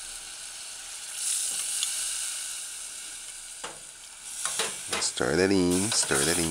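Water poured into a hot stainless steel saucepan of sautéed saltfish and mushrooms, setting off a sizzle about a second in, followed by a metal spoon stirring and clinking in the pan. A voice is heard near the end.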